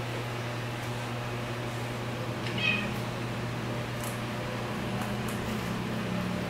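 A cat gives one short, high-pitched meow about two and a half seconds in, over a steady low hum.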